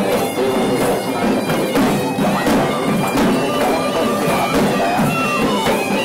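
Sri Lankan procession music: dawul drums beaten by a marching troupe, with a shrill reed pipe playing a wavering, held melody over them that slides down near the end.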